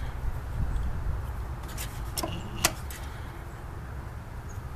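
A few light clicks and knocks from handling a MIG welder's torch, cables and controls, over a low steady rumble.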